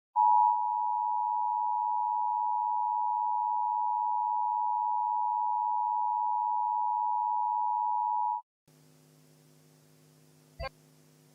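Emergency Alert System attention signal: a steady two-tone beep (853 and 960 Hz) held for about eight seconds and then cut off sharply. It is followed by a faint hum and a single click near the end.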